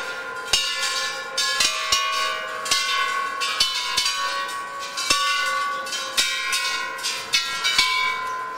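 A row of hanging metal temple bells rung one after another by hand, about two strikes a second, each bell ringing at its own pitch so the tones overlap.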